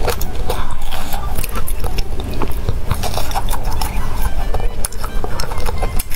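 Close-miked chewing of a mouthful of spicy noodles, with many small wet mouth clicks.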